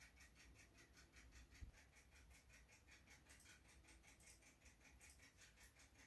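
Near silence: faint background with an even, rapid pulsing of about six pulses a second, and one soft low thump about a second and a half in.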